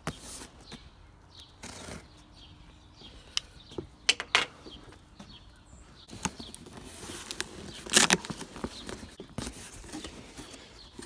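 Cardboard shipping box being slit open with a folding knife and its flaps pulled back: packing tape and cardboard scraping, tearing and rustling, with scattered sharp knocks. The loudest knock is about eight seconds in.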